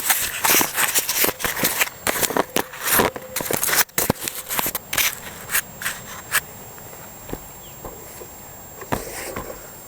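Handling noise from the camera being fitted onto a bike mount: a rapid string of clicks, knocks and rubbing right at the microphone, easing off after about six and a half seconds to a faint steady background with a few stray clicks.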